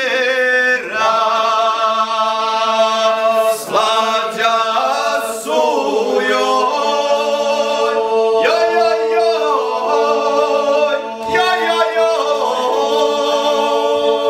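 A small group of men singing a Serbian folk song unaccompanied in parts, drawing out long melismatic vowels while one voice holds a steady low note underneath.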